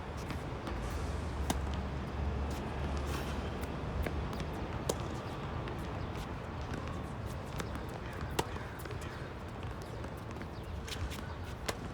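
Tennis balls being hit and bouncing on a hard court: sharp pops at irregular intervals, the loudest about every three and a half seconds, over steady outdoor background noise with a low rumble.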